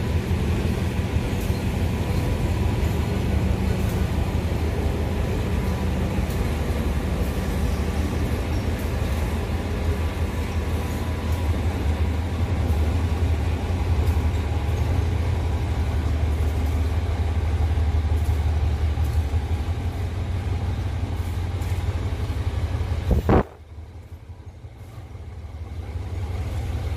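Diesel train running close by: a steady low engine rumble with a faint constant whine on top. It cuts off suddenly about three-quarters of the way through.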